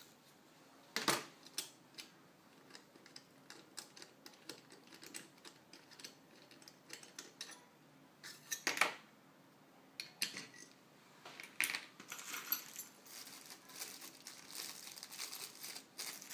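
Small metal parts of a knife sharpener jig clicking and clinking as they are handled and set down on a table, with a couple of sharper knocks about a second in and about nine seconds in. Plastic packaging crinkles near the end.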